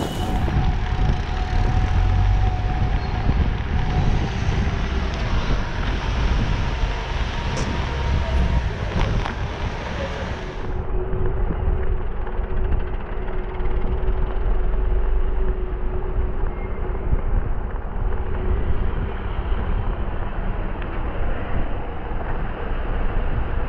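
Wind rumbling on the microphone of a camera riding on a moving bicycle, over steady road and traffic noise.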